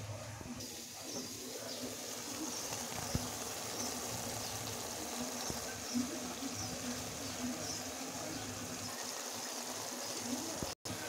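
Mixed small-fish curry with tomato simmering in a covered kadai: a steady sizzle and bubble with occasional small pops and clicks.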